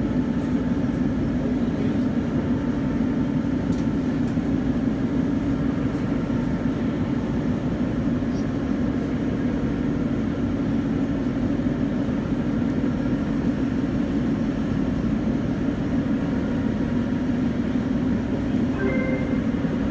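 Steady low hum and rumble inside an Em-series (81-501) metro car standing at a station.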